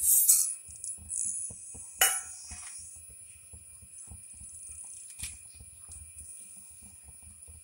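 Mustard seeds tipped from a steel bowl into hot coconut oil in a metal pan, with a brief rattling sizzle as they land. A sharp metallic clink comes about two seconds in and a smaller click about five seconds in.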